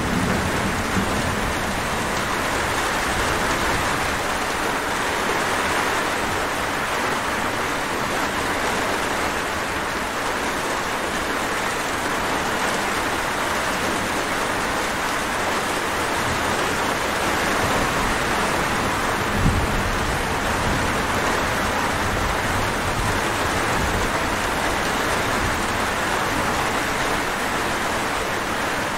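Steady rain falling, a dense even hiss. A low rumble of thunder fades out in the first second, and a brief low thump comes about two-thirds of the way through.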